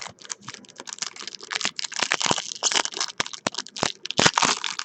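Baseball cards being handled and flicked through by hand: a dense, irregular run of quick clicks and rustles.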